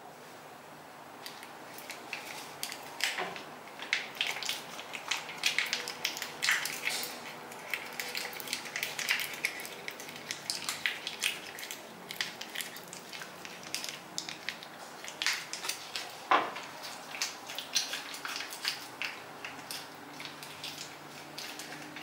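Clear plastic mask pouch being kneaded by hand to mix the Meeth Morerich face mask inside, the plastic crinkling and crackling irregularly, with a couple of sharper taps.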